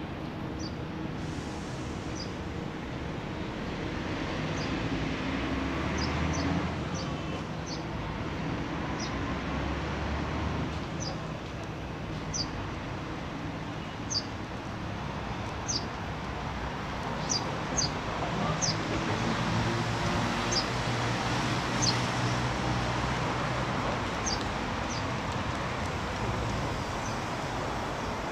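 Steady hum of city traffic, with a small bird giving short, high chirps every second or two, irregularly.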